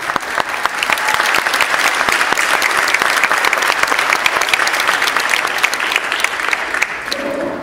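Congregation applauding, a dense crowd of hand claps that holds steady and fades out near the end.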